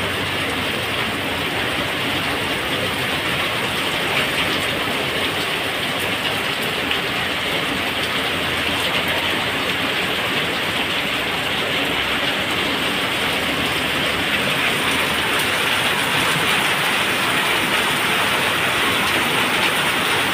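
Heavy rain pouring down onto the road and nearby surfaces: a steady, dense hiss that grows slightly louder in the second half.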